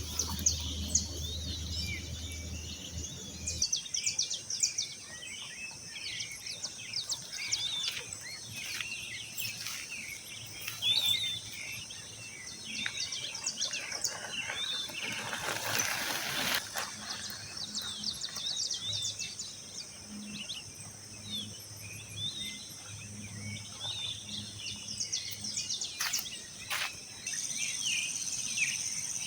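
Many small birds chirping and twittering in quick, overlapping calls, over a steady high-pitched insect drone that grows louder near the end. A brief rush of noise passes about halfway through.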